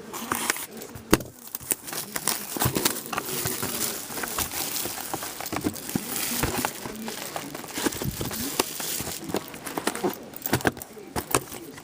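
Plastic shrink wrap crinkling and tearing as a sealed box of hockey trading cards is unwrapped, with irregular crackles, rustles and small clicks of handling.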